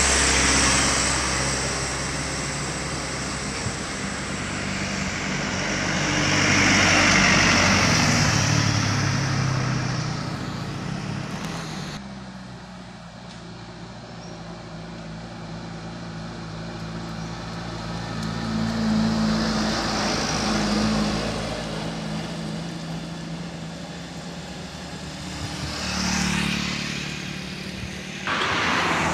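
Heavily loaded trucks driving past one after another, diesel engines running under load with tyre noise, loudest as each truck passes close. The sound changes abruptly about twelve seconds in and again near the end.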